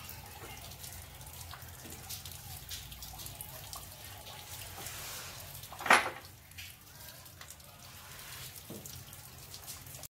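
Light rain dripping and pattering on wet ground, with rainwater running off a terrace. One sharp, louder knock comes a little after halfway.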